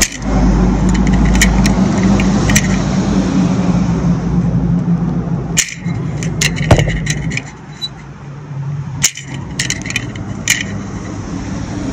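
A pickup truck drives past on the street, its engine and tyres making a steady low drone that fades after about seven seconds. Several sharp clicks come from handling the folding knife and the spring pull gauge.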